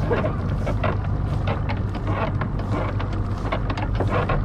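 Evinrude 300 outboard motor running with a steady low hum, while the shrimp-pot rope pays out over the boat's side with irregular scratchy clicks.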